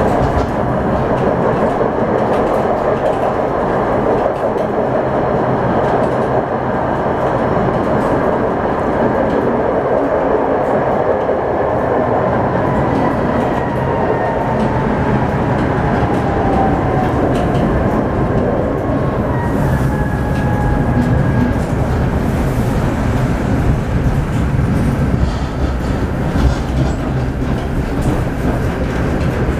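Tatra T3 tram running along the track, heard from inside the passenger saloon: a steady loud rumble of wheels on rails and the rattling car body. Partway through, a faint whine slides down in pitch.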